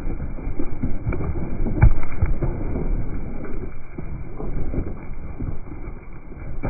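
A flock of Zwartbles ewes trampling and jostling right around a microphone on the ground: hooves scuffing and stamping on frozen, straw-covered soil, with irregular close knocks. The loudest thump comes about two seconds in.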